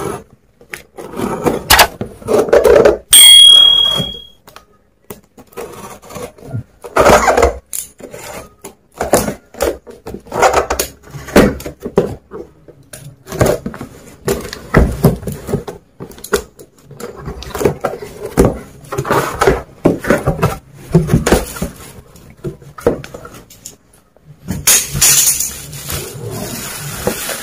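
Utility knife slicing through packing tape on a cardboard box, with irregular scraping, tearing and cardboard flaps being handled, and a short high squeak about three seconds in. Near the end, the crinkly rustle of foam packing wrap being handled.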